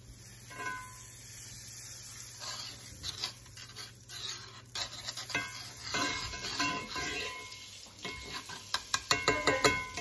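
Butter sizzling as it melts in a hot Lodge cast-iron skillet, while a butter knife scrapes and taps across the pan spreading it, ending in a quick run of taps.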